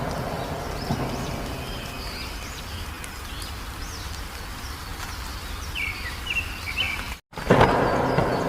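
Wild songbirds chirping in short repeated phrases over a steady background of outdoor noise. About seven seconds in the sound drops out briefly, then comes back with a sudden louder surge of deep noise.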